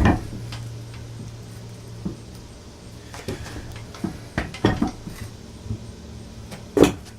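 Metal hand tools and motorcycle parts clinking and clanking during disassembly: a string of separate sharp knocks, the loudest at the very start and another near the end.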